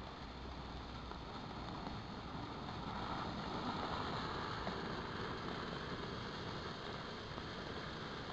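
Homemade firework fountain burning on the ground with a steady hissing rush, swelling a little about three seconds in.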